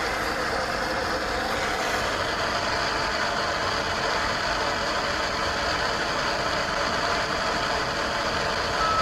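Steady, loud hiss of electronic static, unbroken throughout, with a short steady beep right at the end.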